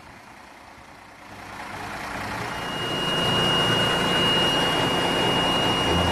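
The Cummins 6CTA8.3 six-cylinder turbocharged diesel of an M923A2 5-ton military cargo truck running. It swells over the first few seconds and then holds steady, with a thin high whine joining about halfway through.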